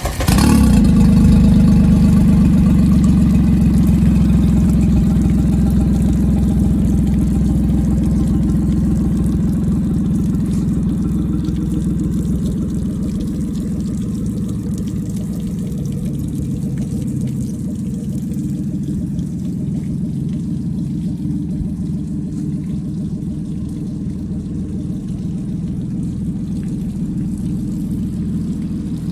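Suzuki 50 hp four-stroke outboard motor running steadily at idle, out of the water with its boat on a trailer. It comes in loud right at the start and eases slowly quieter over the first dozen seconds.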